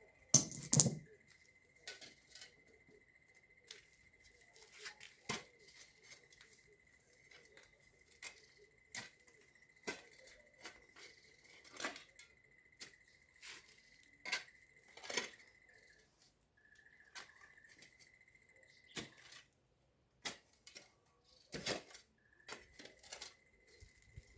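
Scattered light clicks and taps, the loudest about a second in, over a faint steady high-pitched whine that drops out briefly a few times.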